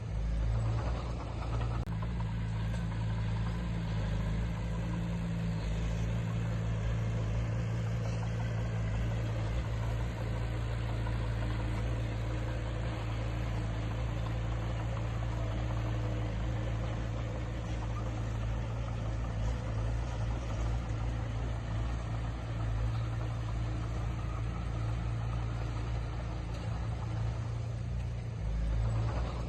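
Diesel engine of heavy earthmoving machinery running steadily with a low, even hum.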